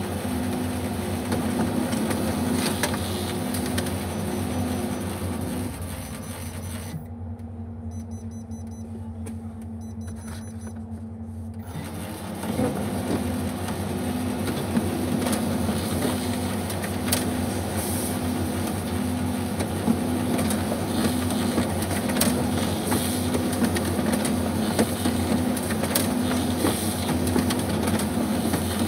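Kyocera Ecosys laser printer running through a double-sided print job: motor and rollers feeding paper with a regular pulsing hum and scattered ticks. About six seconds in it falls quieter for several seconds, then starts up again around twelve seconds in as the sheet is fed back through.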